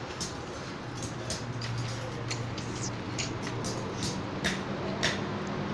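Binding wire being twisted around crossing steel rebar with a hand tool, giving sharp irregular metallic clicks and ticks, about two a second. A steady low hum runs underneath.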